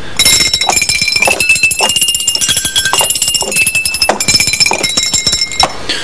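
Musical cowbells rung rapidly: a fast run of clanging strikes with ringing notes that step between several pitches, stopping shortly before the end.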